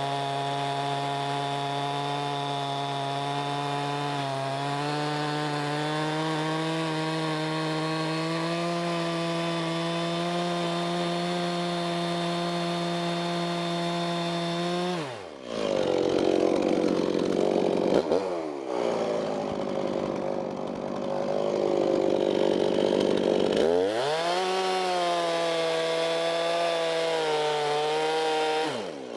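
Stihl MS311 two-stroke chainsaw running at high revs. About halfway through, the engine pulls down as the chain loads up in the white oak, with a louder tearing cutting noise. The revs climb back about 24 seconds in and drop again near the end.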